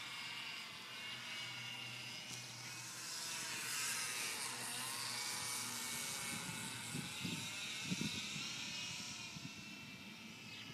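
HobbyZone Mini Super Cub RC plane's small electric motor and propeller whining in flight, its pitch sweeping as the plane passes by about halfway through. Some low bumps of wind on the microphone in the second half.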